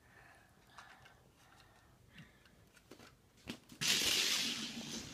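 Faint scattered clicks and knocks, then a sudden loud rustle about four seconds in that fades away: handling noise from a plastic Lego model being moved about.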